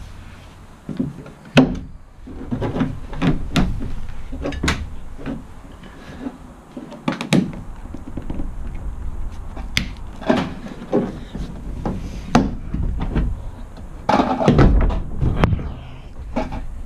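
Irregular knocks, clicks and rattles of a bus's interior ceiling cove panel being worked loose and handled by hand.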